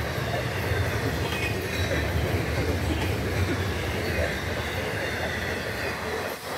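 FEC intermodal freight train of flatcars carrying truck trailers rolling past at speed: a steady, heavy rumble of steel wheels on the rails.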